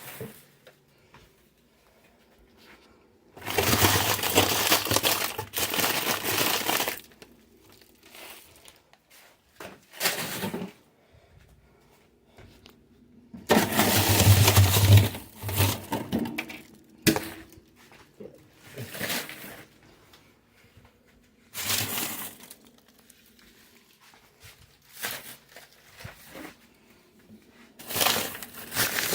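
Food packages and plastic bags being handled and moved while a refrigerator and freezer are emptied: irregular bouts of rustling, crinkling and clatter, the longest lasting a few seconds, with quiet gaps between.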